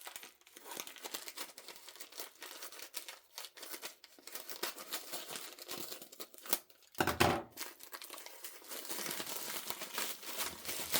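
Packaging crinkling, rustling and tearing as a parcel is unwrapped by hand, with a louder bump about seven seconds in.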